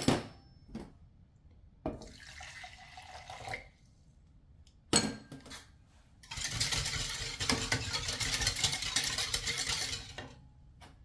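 Wire whisk beating a liquid sauce mixture in a plastic measuring cup: a fast, busy rattle of wires against the cup for about four seconds in the second half. Before it come a few sharp knocks and clatters of small containers and utensils.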